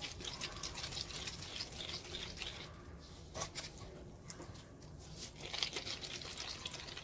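Granulated sugar crunching and rustling as sticky tamarind balls are rolled and coated in it by hand, an irregular run of small crackles that comes and goes.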